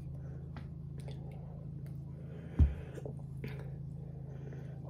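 Soft sipping and swallowing of soda from a can, with one dull thump about two and a half seconds in, over a steady low hum.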